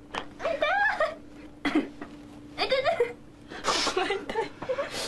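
A person's voice making short wordless sounds, three of them with bending pitch, and a breathy burst just before the last.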